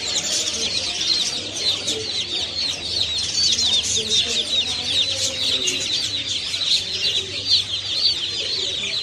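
A large number of small caged birds chirping at once: a dense, continuous chatter of short, high chirps and trills, with fainter lower calls beneath.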